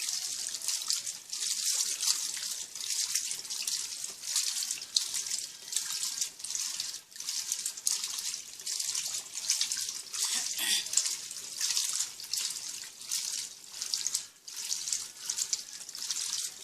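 Water and wet jeans sloshing in the tub of an Electrolux Turbo Economia LTD15 top-loading washing machine, in repeated surges about once a second as it agitates the load.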